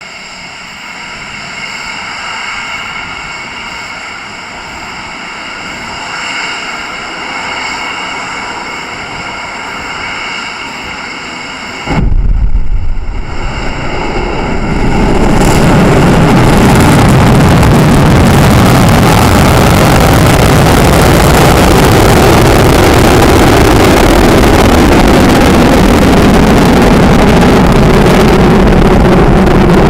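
SpaceX Falcon 9 rocket's nine Merlin engines igniting at liftoff, heard at close range from the pad: a sudden very loud onset about twelve seconds in, building within a few seconds into a dense, steady roar near the limit of the recording. Before ignition there is only a quieter steady sound with several high whining tones.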